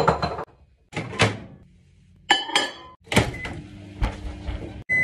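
A series of sharp door-like knocks and thuds, roughly one a second, with a short high squeak in the middle; the sound cuts off abruptly just before the end.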